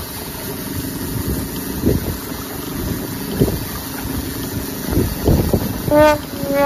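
Outboard motor running steadily at trolling speed, a low hum under irregular low gusts of wind on the microphone. A brief voiced call comes near the end.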